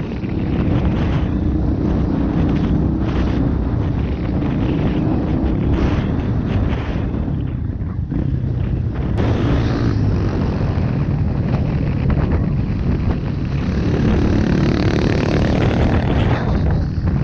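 Off-road motorcycle engine running under way, with wind noise on the bike-mounted microphone. The sound changes abruptly about nine seconds in, and the engine note climbs briefly near the end.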